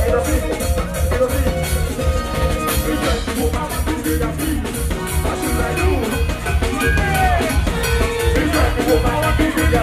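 Live band music played loud over a PA, with drums keeping a steady fast beat.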